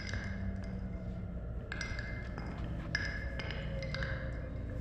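Ice cubes clinking against a glass several times, at irregular moments, each tap leaving a brief glassy ring. Under them runs a steady low rumble, the running noise of the JR West Thunderbird limited express train.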